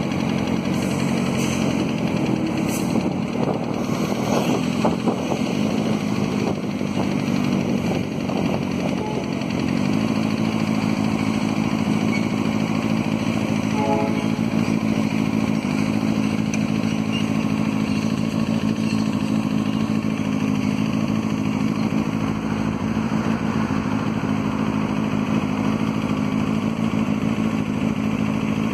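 Diesel-electric locomotive engine of a Rumo GE C30-7 running steadily while shunting a cut of wagons. Its note steps up about a third of the way in and then holds there, with a few light knocks and clanks in the first several seconds.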